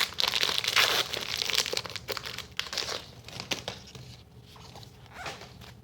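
Trading-card pack wrapper crinkling as it is handled, dense for the first two seconds, then thinning to occasional light crackles.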